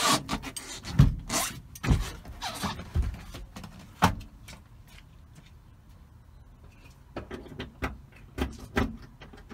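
A string of hard knocks and metal clunks, plausibly a breaker bar being worked against the hatch latch from inside a stripped Nissan 240SX to force the hatch open. They come about once a second for four seconds, pause, then four more come near the end.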